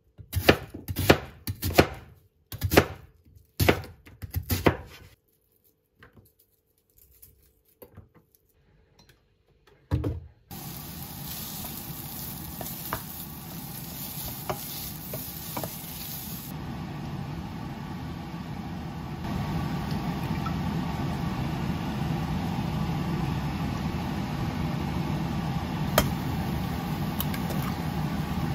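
A chef's knife chops an onion on a wooden cutting board: quick strikes in the first five seconds, a few lighter ones, and one hard strike at about ten seconds. Then sliced onion sizzles steadily as it fries in a stainless steel pan, stirred with a wooden spatula, getting louder about halfway through, with one sharp tap near the end.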